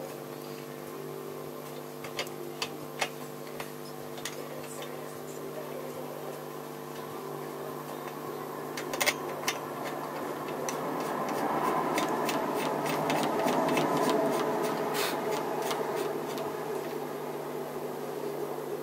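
Hands working on a motorcycle carburettor and its fuel line: scattered light clicks and taps, and a louder stretch of rustling noise in the second half, over a steady background hum.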